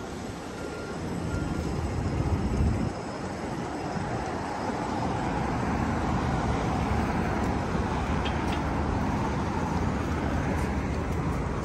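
City street traffic: a steady wash of engine and tyre noise from passing vehicles with a low rumble, swelling louder after the first couple of seconds.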